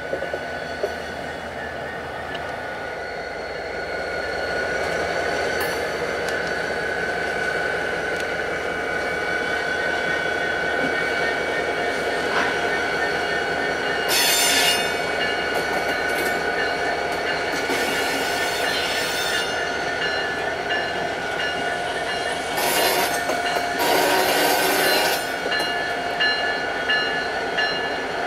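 Diesel freight locomotives rolling slowly past, engines running, with a steady high-pitched steel wheel squeal. Two short bursts of hiss come about halfway through and again near the end.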